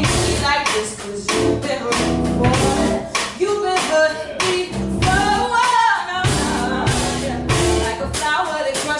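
Music with a steady drum beat, guitar and singing.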